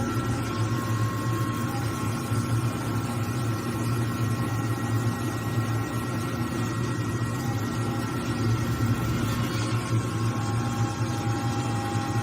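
Large CNC metal spinning lathe running steadily: a constant low machine hum with a few steady whining tones above it.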